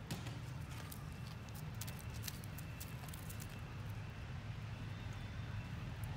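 Scattered light crackling clicks of dry leaves as a monkey moves off across the leaf litter, mostly in the first half, over a steady low background rumble.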